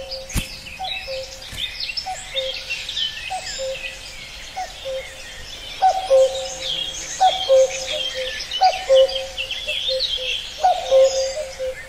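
Common cuckoo calling its two-note "cuck-oo", a higher note falling to a lower one, over and over in a steady series that grows louder about halfway through. Other songbirds chirp and warble in the background.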